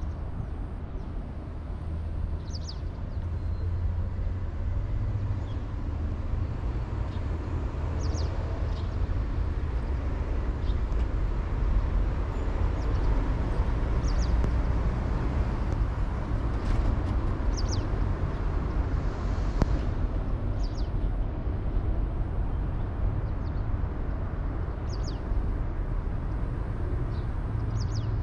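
Outdoor ambience: a steady low rumble with short, high bird chirps every few seconds.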